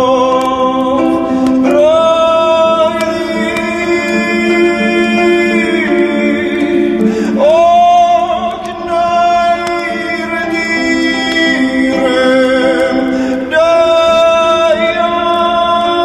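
Music: a singing voice holding long notes, with each new note sliding up into place about every six seconds, over a steady instrumental accompaniment.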